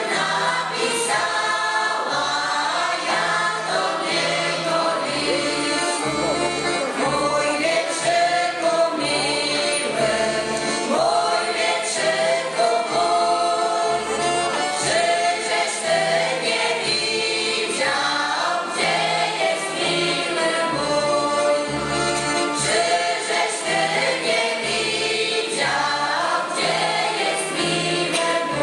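Mixed folk choir of men's, women's and children's voices singing a folk song, accompanied by an accordion whose bass keeps a regular beat underneath.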